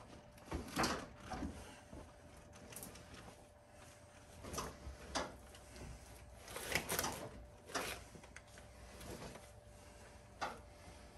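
Stuffed animals being shoved and rummaged inside a metal dumpster: irregular rustling of plush with scattered bumps and knocks, a few of them sharper and louder.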